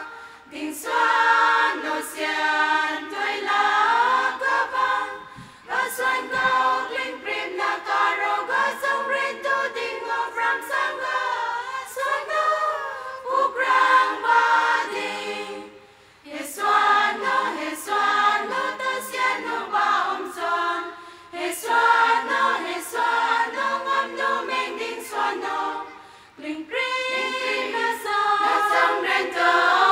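Women's choir singing a song in long phrases, with brief pauses between phrases about every ten seconds.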